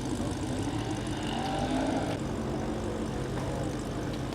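Drag-race car engines running, a steady low drone.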